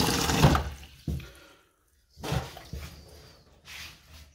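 Tap water pouring into an enamelled pot in a stainless steel sink, stopping about half a second in. Then a sharp click and a few softer knocks as the pot is handled and set down.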